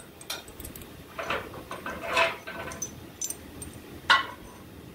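Steel four-link suspension bar and frame bracket clinking and clanking as the bar is worked into place by hand. There are several light knocks, then one sharp ringing metal clank about four seconds in.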